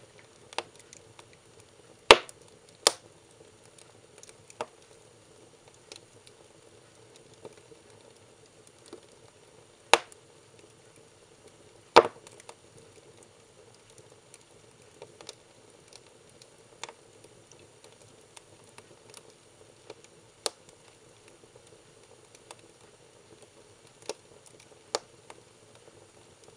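Burning firewood crackling, with irregular sharp pops and snaps over a low steady hiss of the fire. The loudest pops come about two and three seconds in and again around ten and twelve seconds.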